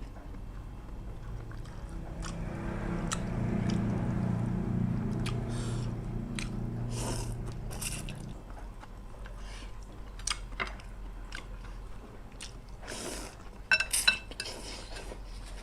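Close-up eating sounds: chewing and biting, with sharp clicks of chopsticks or spoon against the bowl, the loudest about fourteen seconds in. A low steady hum runs from about two to eight seconds in.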